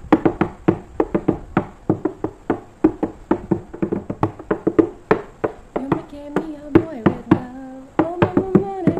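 Hands drumming a quick rhythm of knocks and taps on the body of a guitar laid upside down, with pitched ringing under the knocks.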